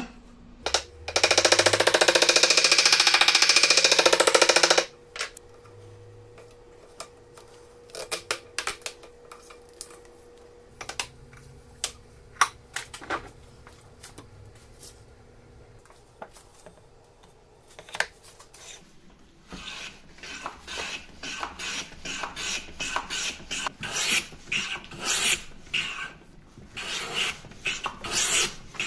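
A loud steady hiss for a few seconds near the start, then scattered knocks and handling clicks. In the last third comes a wooden hand plane planing wood on a shooting board: a brisk run of rasping strokes, about two a second.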